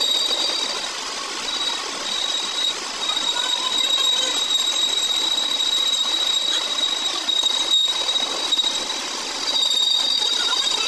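Metal lathe turning a steel drilling-machine chain roller, the cutting tool taking a cut from the spinning steel, a steady running noise with a high whine through it.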